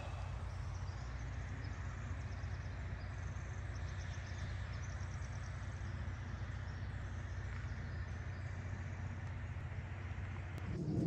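Outdoor ambience: a steady low rumble with faint, short bird chirps a few seconds in.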